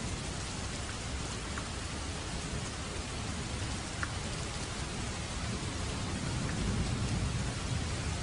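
Steady rain falling, a dense even hiss with a few faint single drops ticking through it. A low rumble swells about six seconds in and eases off near the end.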